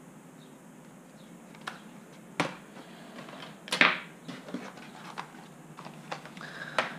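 Handling noises of a laptop on a wooden desk: scattered clicks and knocks and one louder short clatter about four seconds in, as the laptop is shut, its cable handled and the machine turned over. A faint low hum stops after about two seconds.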